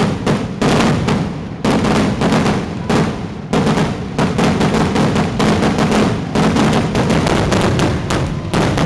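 Fireworks finale barrage: aerial shells launching and bursting in rapid succession, many sharp bangs a second with no let-up.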